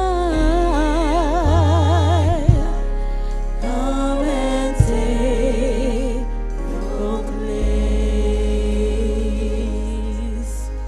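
Gospel worship music: sung notes held with wide vibrato over a steady bass, with two sharp hits about two and a half and five seconds in.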